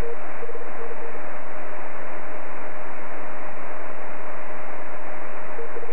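Ham radio receiver audio: a steady hiss squeezed into a narrow passband, with a constant carrier tone and a Morse code signal keying dots and dashes during the first second and again just before the end.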